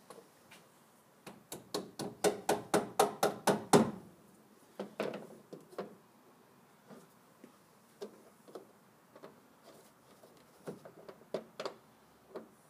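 Small mallet tapping parts into a pickup truck's tailgate: a quick run of about a dozen sharp strikes, about five a second, getting louder to the last. After it come a few scattered lighter knocks and clicks.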